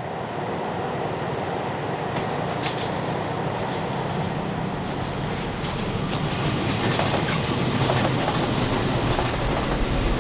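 Moving train heard from on board: steady running noise of the train on the rails, with a few sharp clicks from the wheels, once early and several more past the middle.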